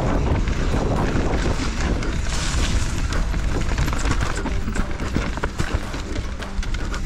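Mountain bike riding fast down a rough trail: wind rushing over the microphone and the rumble and clatter of tyres, with many sharp knocks from the bike over rocks and roots.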